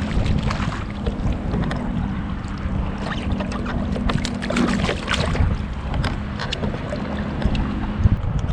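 Wind buffeting the microphone over open water, with a steady low hum underneath and scattered light knocks and taps.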